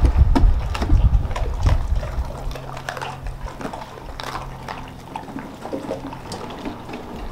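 Dogs eating frozen raw chicken and mackerel from their bowls: wet chewing and slurping with many sharp cracks and crunches of frozen meat and bone. Wind rumbles on the microphone during the first couple of seconds, and a low steady hum runs through the middle.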